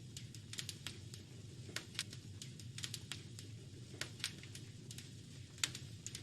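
Wood fire crackling in a fireplace: irregular sharp pops and snaps, several a second, over a low steady rush.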